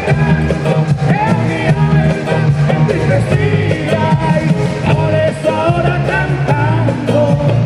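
Live vallenato band playing: accordion and guitars over a steady bass line, with a man singing lead into the microphone.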